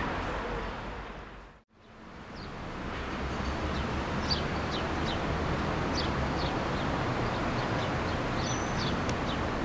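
Small birds chirping, a scatter of short high chirps, over a steady low outdoor background rumble. The sound fades out and back in briefly a couple of seconds in.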